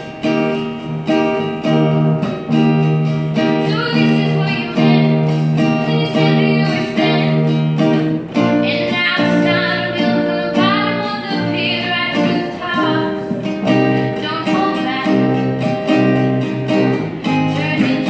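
Live acoustic guitars strumming chords in a steady rhythm, with a teenage girl's voice singing a song over them from about four seconds in.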